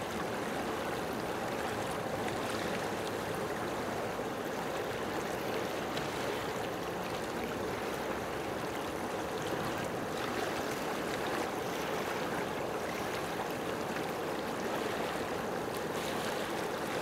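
Steady rush of running water, even and unbroken throughout.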